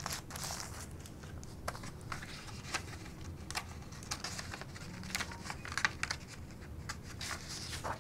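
Paper sheets rustling, with scattered light clicks and taps, as the kit's instruction sheets are handled on a tabletop.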